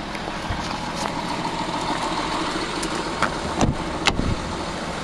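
Audi A6 3.0 TDI V6 diesel engine idling steadily, with a few clicks about three and a half seconds in as the driver's door is opened.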